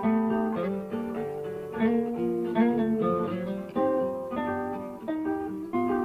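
Nylon-string classical guitar playing a melody of plucked notes over chords, with notes changing every fraction of a second.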